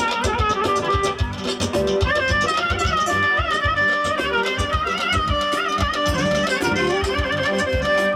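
Live folk dance music: a clarinet plays a wavering, ornamented melody over a steady low beat.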